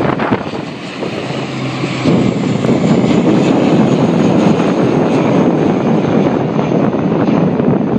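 Twin-engine turboprop airliner passing low overhead, its engines and propellers making a dense, loud drone that swells about two seconds in and holds, with a faint high turbine whine slowly dropping in pitch.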